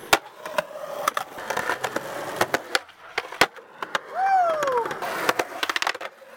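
Skateboard wheels rolling on concrete, broken by many sharp clacks of the board slapping the ground from tail pops and landings. About four seconds in, a voice calls out once with a falling pitch.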